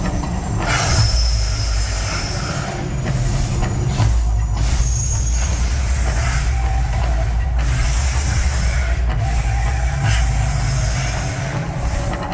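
Mirage volcano attraction erupting: a loud, deep steady rumble with hissing surges that swell and drop every second or two.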